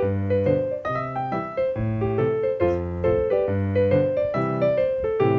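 Background piano music: a quick, steady run of notes over a repeating low bass line.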